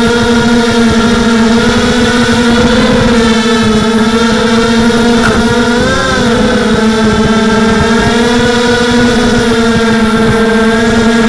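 Tarot Robocat 280 quadcopter's motors and propellers whining steadily, heard from its own onboard camera. The pitch wavers a little and dips and recovers about halfway through.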